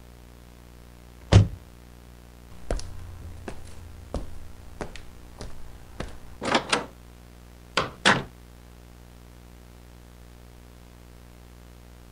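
Door being pounded on: one loud thud, then a run of irregular knocks and bangs, ending in two pairs of heavy thumps. A steady low electrical hum runs underneath.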